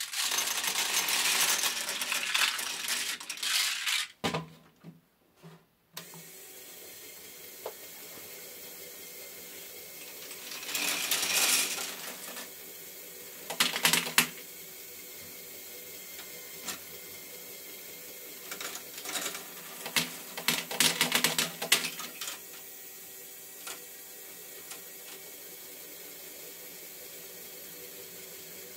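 LEGO Technic ball-contraption tilt module running: a small motor hums steadily while plastic balls roll and clatter along the tilting tracks in bursts of clicks. The first few seconds are noisy handling as a hand sets the module going.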